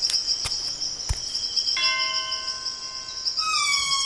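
Cartoon haunted-house sound effects: crickets chirping steadily, a few sharp taps in the first second, then a bell-like ringing tone from about two seconds in. Near the end comes a slowly falling creak as the wooden double doors begin to open.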